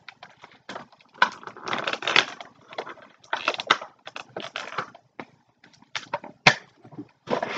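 Cardboard box packaging being rustled, crinkled and torn in irregular bursts as toy crossbow parts are pulled out of it, with a sharp knock about six and a half seconds in.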